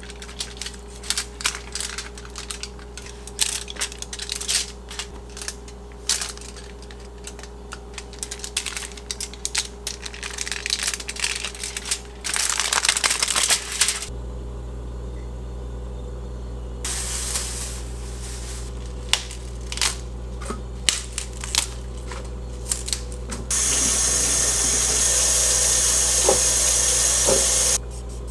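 Aluminium foil and rice paper crinkling and crackling as a spring roll is rolled up by hand, a quick run of small irregular clicks and rustles. Near the end a steady hiss runs for about four seconds.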